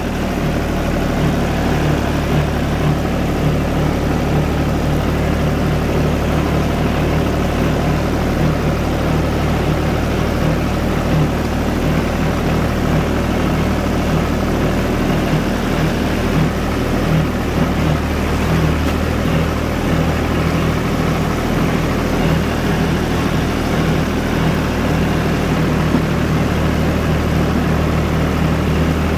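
Diesel engine of a four-wheel-drive UTB 445 tractor running at a steady, even speed, with no revving.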